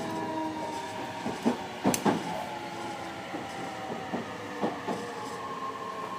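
Tobu 60000 series electric train running, heard from inside a motor car: the traction-motor whine holds several steady tones over the rumble of the wheels. Sharp clacks of the wheels over rail joints come a few times, loudest about two seconds in.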